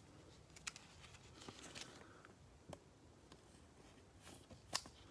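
Faint handling sounds of trading cards and a rigid clear plastic toploader in nitrile-gloved hands: soft rustles and three small clicks, the sharpest near the end.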